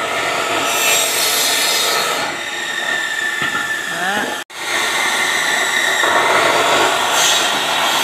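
Electric chop saw with a circular blade running and cutting through green bamboo culms: a steady motor whine with a louder, higher rasp as the blade bites into the bamboo, about a second in and again near the end. The sound drops out for an instant about halfway.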